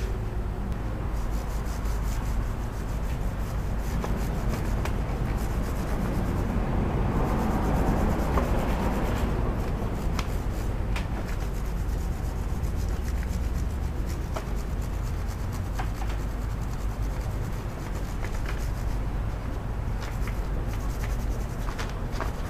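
Steady rubbing and scraping of a motorcycle drive chain being worked over by hand during cleaning, swelling louder for a few seconds in the middle, with a few light metallic clicks and a low rumble underneath.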